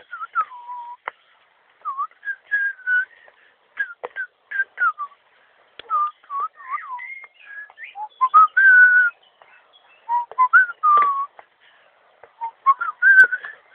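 A person whistling close by: short sliding notes in loose phrases with pauses between them. Light clicks and knocks are scattered through it.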